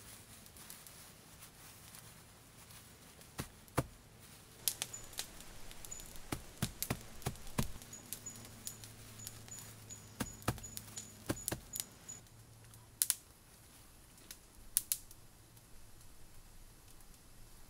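Tufts of grass being pulled apart and planted by hand in soil: irregular rustles, soft pats and sharp little clicks, busiest in the middle and thinning out near the end.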